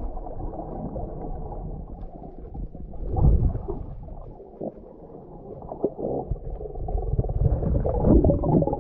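Muffled underwater sound of water moving around a swimmer in shallow seagrass: low rumbling and sloshing with a few knocks, loudest about three seconds in and building again near the end.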